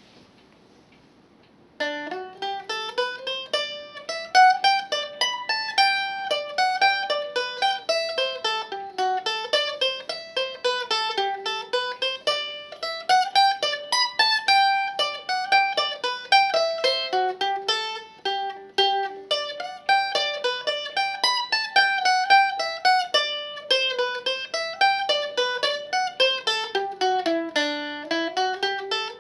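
1920 Vega 201 mandolin played solo, a slow single-line melody of plucked notes. The playing begins about two seconds in, after a moment of faint room hiss.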